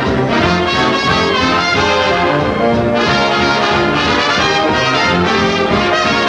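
Brass-led orchestral cartoon score, trombones and trumpets to the fore, playing continuously at a steady loud level.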